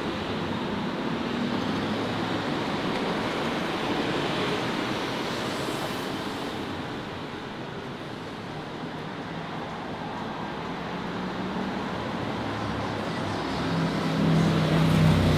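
City street traffic: a steady wash of passing cars, with one vehicle's engine coming closer and louder near the end.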